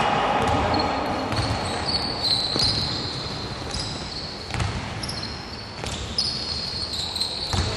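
A basketball bouncing on a hardwood gym floor, several irregularly spaced thumps, with short high squeaks of players' sneakers on the court.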